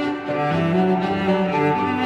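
Background music of bowed strings playing slow, held notes, with a low cello-like line coming in about half a second in.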